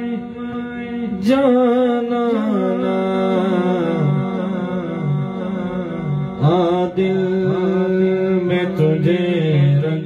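Naat played through a powered PA speaker: a sung, winding vocal line over a held drone, with the voice coming in about a second in and again past six seconds.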